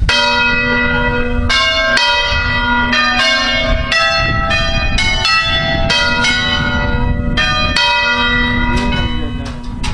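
A concerto of five church bells tuned in B (Si3), swung by hand, ringing in rapid succession at about two strokes a second, their rings overlapping.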